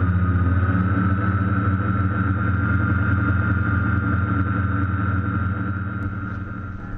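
Quadcopter drone's electric motors and propellers running steadily, heard from the camera mounted on the drone: a loud, steady buzz with a higher whine above it, easing a little near the end.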